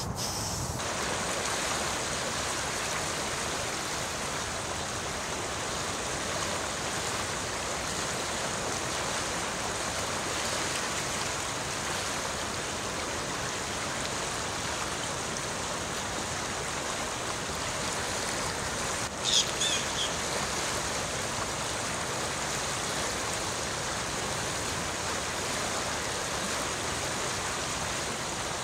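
Shallow creek running steadily over rocks among ice shelves. A short, high bird call sounds once, about two-thirds of the way through.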